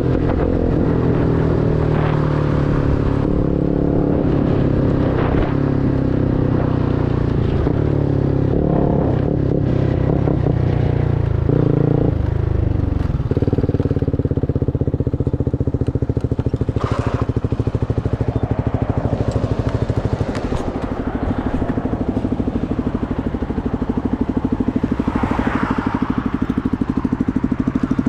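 CFMoto NK250's single-cylinder engine through a full Akrapovič exhaust, falling in pitch as the bike slows over the first few seconds, then running at a steady pitch with an even pulse from about halfway.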